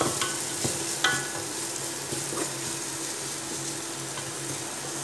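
Sliced onion, garlic and ginger sizzling in hot oil in a metal pot while a wooden spatula stirs them, knocking against the pot a few times in the first second or so, the loudest knock about a second in with a brief ring.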